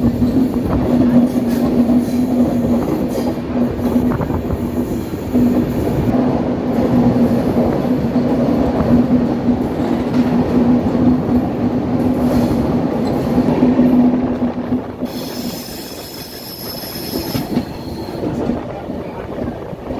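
Express train running at speed, heard from the coach doorway: a steady rumble of wheels on rails with a low hum that stops about fifteen seconds in, followed briefly by thin high whistling tones. The train passes through a tunnel partway through.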